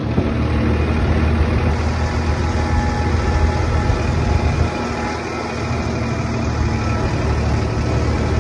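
Farmtrac 60 tractor's diesel engine running steadily as the tractor drives along at road speed, a low even drone with road and wind noise, heard from the driver's seat.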